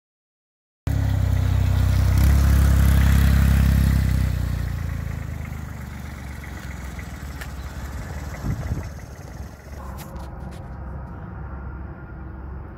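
Engine of a truck-mounted forklift running, coming in abruptly about a second in. It is loudest over the next few seconds, then fades to a lower steady level.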